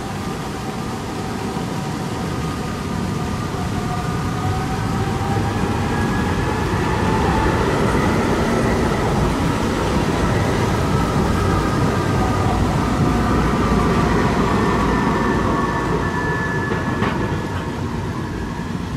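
A Eurotram low-floor tram passes by. Its running noise builds to a peak midway and fades near the end, with whining tones that slowly slide in pitch.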